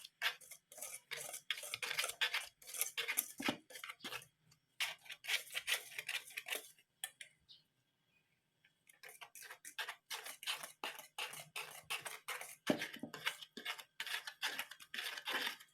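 Wire whisk stirring a dry flour mix in a bowl, its tines clicking rapidly against the bowl's side, with a pause of about two seconds partway through.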